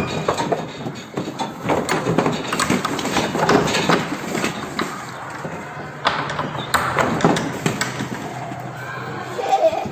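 Irregular knocks and clatter, with people talking in the background.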